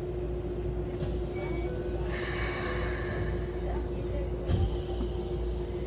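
Machinery running with a steady hum and low rumble. A hiss comes in about two seconds in and lasts a second and a half, and there is a thump about four and a half seconds in.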